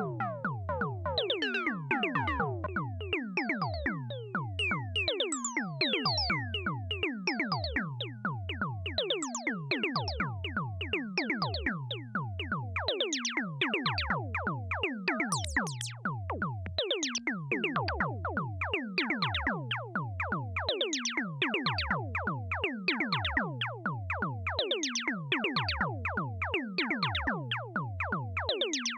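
Behringer SY-1 analog percussion synthesizer playing a sequenced pattern, dry: rapid pitched electronic drum hits that sweep sharply down in pitch, over a low thump repeating about once a second.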